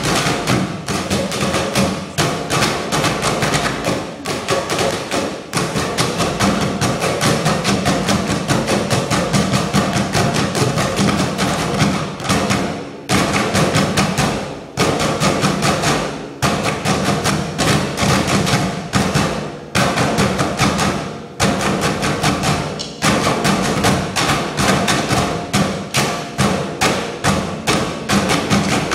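Percussion ensemble drumming on plastic and galvanized metal trash cans: a fast, steady stream of hard strikes in rhythm, with a few short breaks in the pattern.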